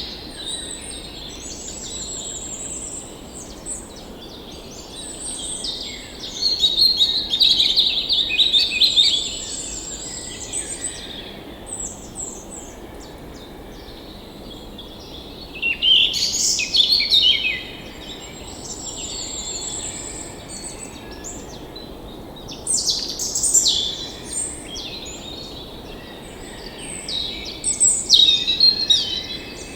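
A chorus of several birds singing and calling: high repeated trills, chirps and warbles, swelling into louder bursts of song several times, over a faint steady rushing background.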